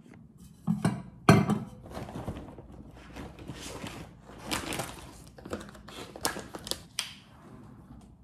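Groceries being unpacked from shopping bags: irregular rustling and crinkling of bags and packaging with scattered knocks, the loudest a sharp knock about a second in.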